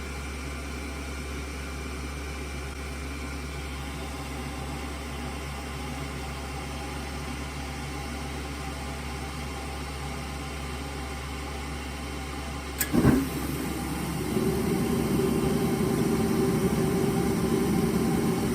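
Old Amana furnace with a steady low electrical hum. About 13 seconds in there is a click and a thump as its newly replaced motor switches on, and the motor then runs steadily and louder.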